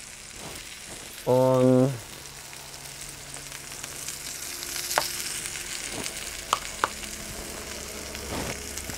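Porterhouse steak sizzling in a cast-iron skillet heated to over 330 °C, a steady hiss of searing fat with a few sharp pops and spits in the second half.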